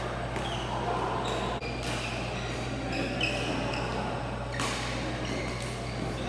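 Badminton doubles rally in a large, echoing sports hall: rackets striking the shuttlecock, with one sharper hit about four and a half seconds in, and brief squeaks of shoes on the court floor, over a steady low hum.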